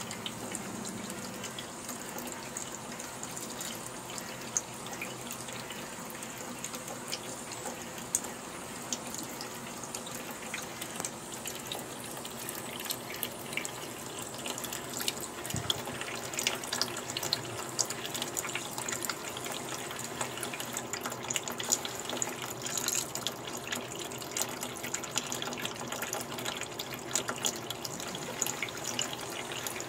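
Kitchen tap running a thin stream into a stainless steel sink, a steady hiss broken by irregular small splashes and drips as a cat paws at the water, more often in the second half.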